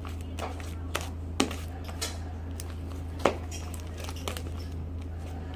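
Sticky slime being worked by hand in a bowl: a few scattered sharp clicks and taps, two of them louder, over a steady low hum.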